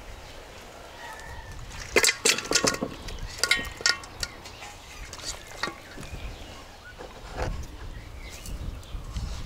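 Metal colander and enamel basin knocking and clinking as raw quail are tipped from one into the other: two clusters of sharp clinks and knocks about two and three and a half seconds in, with a few lighter knocks afterwards.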